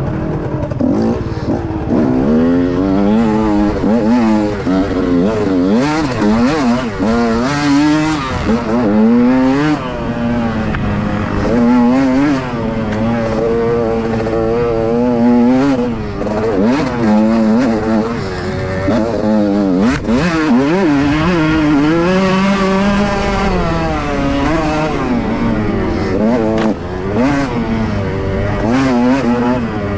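Dirt bike engine revving hard and dropping back again and again, its pitch sweeping up and down every second or two as the throttle is worked through riding. There is a single sharp knock about two-thirds of the way through.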